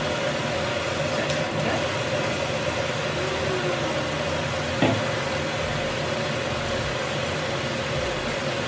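Kitchen tap running steadily into the sink during handwashing, with a single short click about five seconds in.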